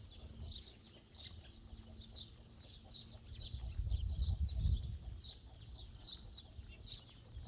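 Eurasian tree sparrows chirping, short high chirps about two a second, over a low rumble that grows louder from about halfway through.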